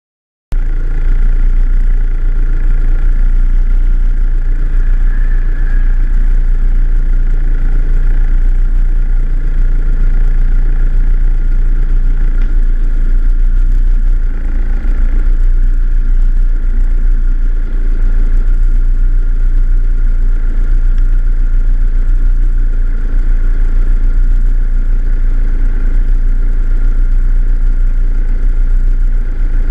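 Snowmobile engine idling steadily, with a brief dip about halfway through.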